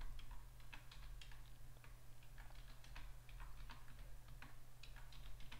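Faint computer keyboard typing: irregular single keystrokes clicking as a password is typed in, over a low steady hum.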